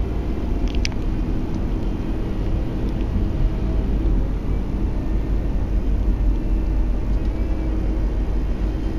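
Steady low road and engine rumble of a moving car, heard from inside the cabin, with a single short click about a second in.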